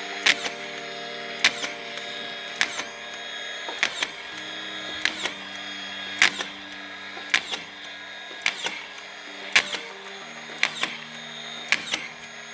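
DEWALT DCF620 18V brushless collated drywall screw gun running steadily with its trigger locked on, with a sharp click about once a second as each collated screw is fed off the plastic strip and driven into the drywall.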